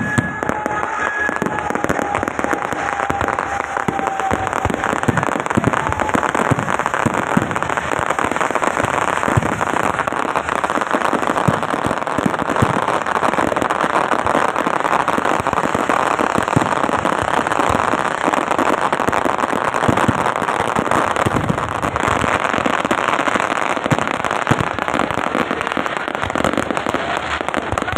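Chakri (ground spinner firework) throwing sparks: a steady, dense crackling hiss that holds its level throughout.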